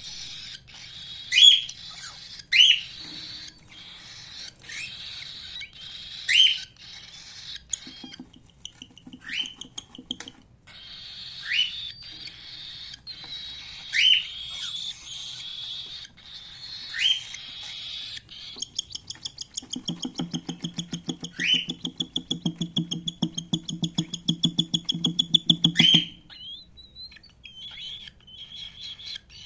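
Cockatiels chirping: loud, sharp single calls every two to four seconds over a steady high chatter. About two-thirds of the way in comes a long, fast rattling trill of some seven pulses a second, which stops abruptly a few seconds before the end.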